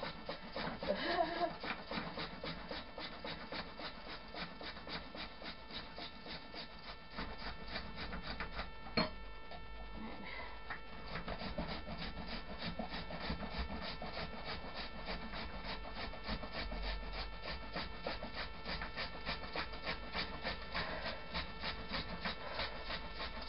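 A carrot being scraped up and down a flat handheld metal grater in quick, even strokes, with a single knock about nine seconds in.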